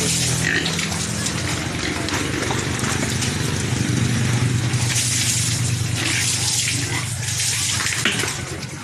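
Water gushing from a hose and splashing as pigs are bathed to cool them in the heat, tailing off near the end.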